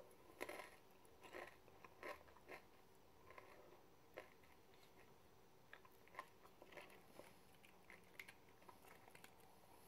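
Faint, irregular crunches of a tortilla chip topped with melted cheese being bitten and chewed.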